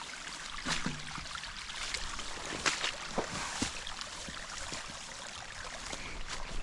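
Irrigation water running steadily in a ditch where siphon tubes are being started, with a few faint knocks.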